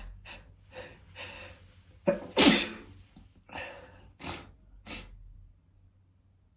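A man sneezing: a loud sneeze about two seconds in, with a short catch just before the main burst. Several short, quieter bursts come before it and three more follow, ending about five seconds in.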